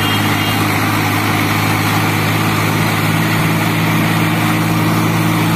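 Swaraj 744 FE tractor's diesel engine running steadily at constant speed while hitched to a loaded trolley that is stuck in the mud.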